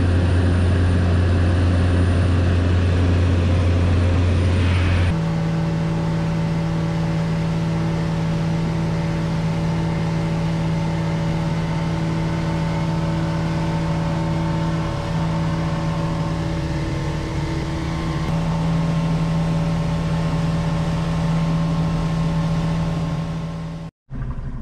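Steady drone of a small propeller plane's engine heard inside the cabin, cut off sharply about five seconds in by the steady hum of a boat's engine running under way, heard from inside the boat's enclosed cabin.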